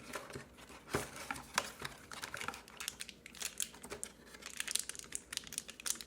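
Smartphone box contents and packaging being handled: irregular rustling and crinkling with scattered sharp clicks and taps.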